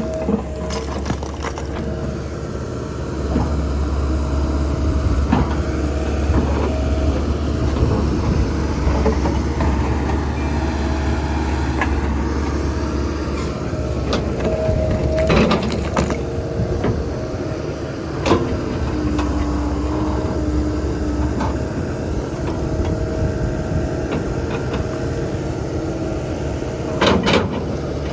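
Kobelco SK210LC-10 hydraulic track excavator's Hino diesel engine running under working load while it digs rock, with hydraulic whine. The engine note is heavier for a stretch in the first half. A few sharp clanks of steel on rock or metal come near the middle and near the end.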